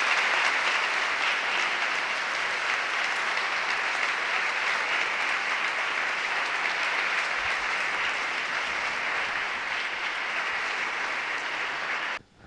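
Audience applauding steadily; the clapping stops abruptly near the end.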